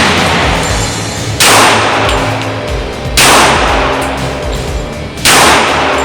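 Three .45 ACP pistol shots from a Rock Island Armory Rock Ultra FS 1911, about two seconds apart, each with a long fading tail, over background music.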